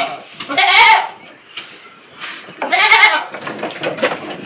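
Dairy goats bleating: two loud calls, one about a second in and another about three seconds in, followed by softer knocks and shuffling.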